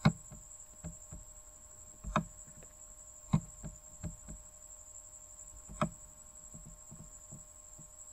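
Computer mouse clicking: about six single sharp clicks at irregular gaps of a second or two, some louder than others, over a faint steady high-pitched tone.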